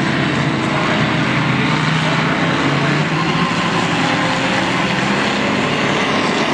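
A pack of stock cars' engines running hard around a short oval track as a steady, loud, overlapping engine noise with no single car standing out.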